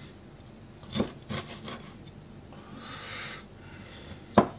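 Kitchen knife cutting and scraping small hatahata (sandfish) on a plastic cutting board while the fish are being gutted: a few light taps about a second in, a rasping scrape around three seconds, and one sharp knock of the blade on the board near the end.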